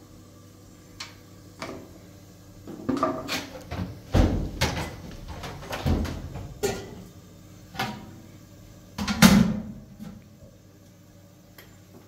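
Irregular knocks and thumps, about a dozen spread over some nine seconds, the heaviest about nine seconds in, like objects being handled and set down.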